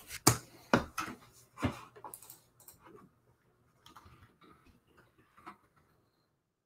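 Handling noise close to the microphone: three sharp knocks and clicks in the first two seconds as a hand moves past, then a few faint scattered ticks.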